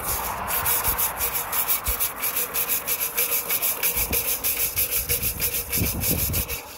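Chimney brush scrubbing the inside of a metal woodstove pipe with rapid up-and-down strokes, about five a second, its bristles rasping against the walls as it clears out the soot and creosote buildup.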